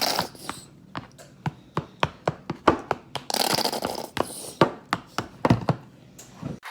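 Kitchen utensils clicking and tapping against a bowl and work surface during egg-yolk filling preparation: a string of irregular sharp taps, with a couple of short scraping rustles.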